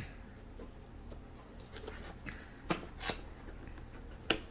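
Faint handling noise: light rustling with a few sharp clicks, about three of them in the second half.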